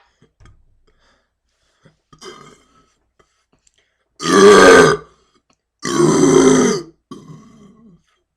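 A man belching on purpose: two long, loud burps of nearly a second each, about four and six seconds in, followed by a quieter, trailing one, with a faint short one about two seconds in.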